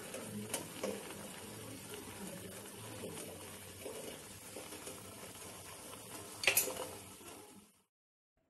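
Sugar syrup bubbling steadily in a pot as rasgulla cook in it, with occasional light clinks of metal utensils and one louder clink near the end. The sound cuts off abruptly just before the end.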